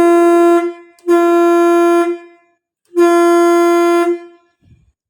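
Truck horn fitted to a tractor, sounded on its newly installed push switch as a test: a steady single-pitched blast that stops shortly after the start, then two more blasts of about a second each.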